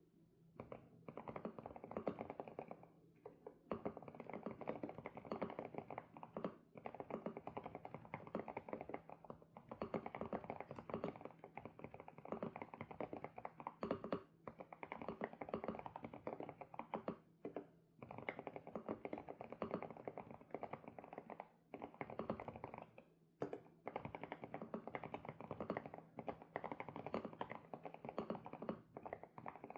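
Fast, continuous typing on an SPM PL108W full-size mechanical keyboard with Sunset switches, the keystrokes clattering densely with a few short pauses between bursts.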